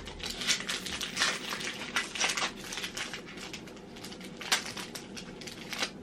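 Foil Yu-Gi-Oh! booster pack wrapper crinkling and crackling as it is handled and torn open, in irregular rustles with one sharper click about four and a half seconds in.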